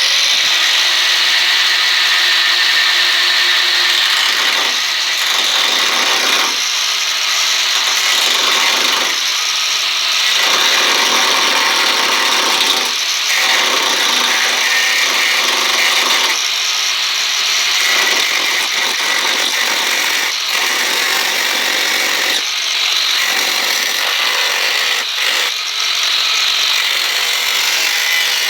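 Disc cutter (angle grinder) slicing through the steel front wing of an Austin A30: a loud, steady, high-pitched grinding that starts abruptly and dips briefly every second or two as the disc works along the cut.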